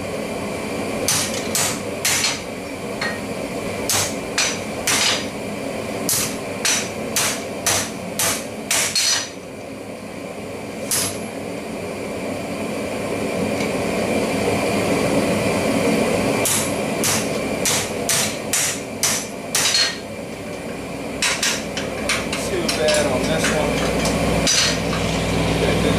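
Hand hammer striking a red-hot steel bar on a steel anvil, bending it into a right-angle L over the anvil's edge: sharp blows in runs of about two a second, with pauses between the runs, over a steady background rush.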